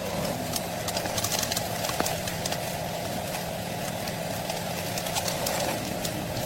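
MIG welding arc: a steady hum with a dense, irregular crackle.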